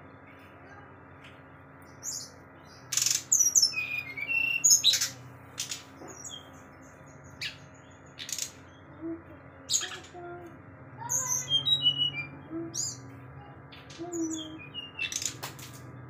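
Caged brown-chested jungle flycatcher singing in bursts: sharp clicking chips mixed with short high whistled notes and trills, the varied "materi" (copied calls of other birds) it sings when in full song.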